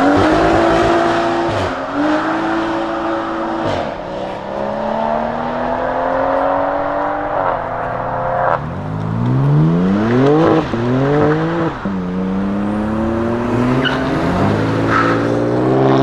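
BMW performance car engine accelerating hard through the gears: its pitch climbs and then drops sharply at each upshift, several times over.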